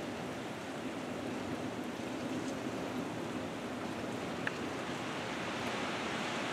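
Steady hiss of rain and wind outdoors, with a few faint ticks.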